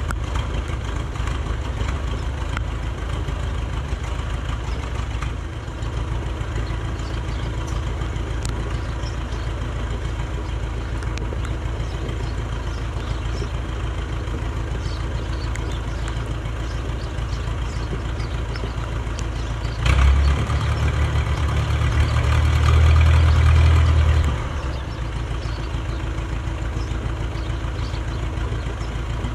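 Truck engine idling steadily, with a louder, deeper rumble for about four seconds a little past two-thirds of the way through.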